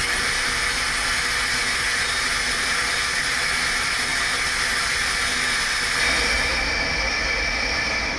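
Swiss-type CNC lathe machining a small brass and aluminium part: a steady hiss with faint steady whining tones, the sound shifting slightly about six seconds in.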